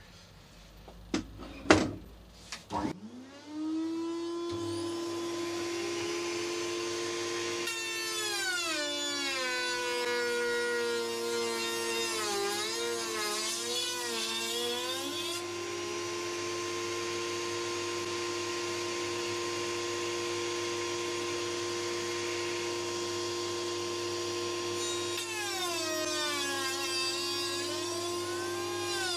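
A few sharp knocks of wood being handled, then a trimmer (compact router) mounted under a router table spins up to a steady whine. Its pitch sags and wavers twice as the straight bit cuts a groove in wood fed along the fence.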